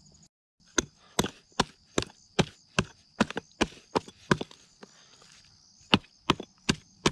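Hatchet chopping into a snapping turtle's carcass and shell: a run of sharp strikes about two and a half a second, pausing for a second or so midway and then carrying on. It is chopping at where the tail is stuck.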